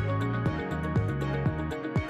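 Electronic background music with a steady kick-drum beat, about two beats a second, over held bass notes and quick hi-hat ticks.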